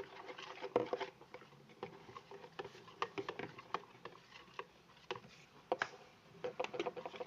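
Spoon stirring a sticky coloured clear-glue slime mixture in a container, with irregular clicks and taps of the spoon against the container, several a second.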